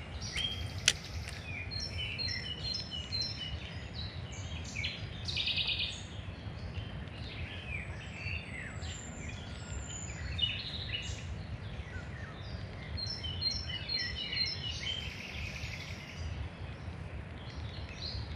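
Several songbirds singing and calling at once: a busy mix of short whistled and chirped notes, with a buzzy trill about five seconds in and again near the end. A steady low rumble runs underneath, and there is one sharp click about a second in.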